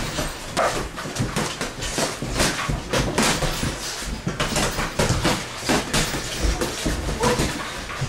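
Boxers sparring in a ring: a quick, irregular run of gloved punches and footwork thuds, with sharp breaths or short cries among them.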